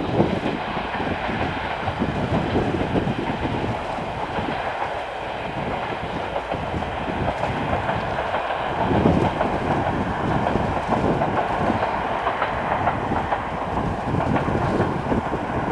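Passenger coaches behind a DE10 diesel locomotive rolling past, wheels clattering over the rail joints.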